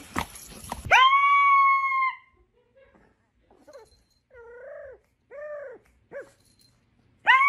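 Small dog howling: a loud long howl, then three shorter, softer wavering howls, and another loud long howl near the end.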